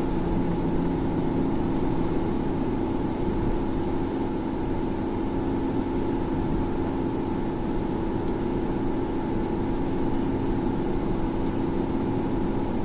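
Steady engine and road noise heard inside a car cruising on an expressway: a constant hum over a low rumble.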